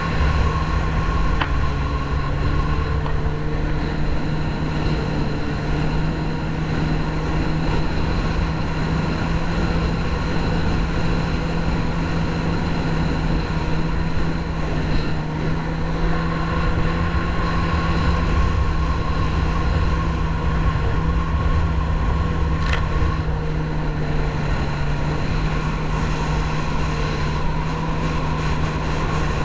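Yamaha marine engine running at a steady cruising speed, a constant drone, over rushing water and wind noise.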